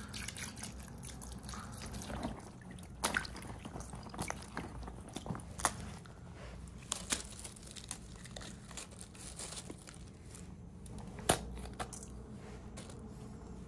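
Scattered crisp crunches and sharp knife taps as small green peppers are handled and cut.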